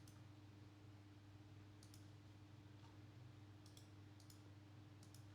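Near silence with a steady low hum, broken by a few faint, sharp clicks, some in quick pairs.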